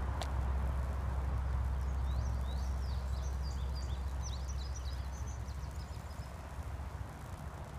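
A songbird sings a quick twittering phrase over a steady low outdoor rumble that slowly fades; a single sharp click comes just after the start.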